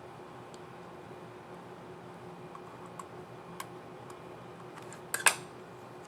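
Plastic clicks from an Asus Vivobook 15 F512D laptop keyboard key and its keycap and scissor mechanism: a few light taps, then a sharp, louder snap-like cluster of clicks about five seconds in.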